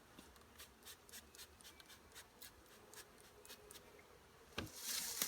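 Hand spray bottle misting sugar water onto packaged honeybees: a quick run of short squirts, about three or four a second. A thump near the end, followed by a brief louder hiss.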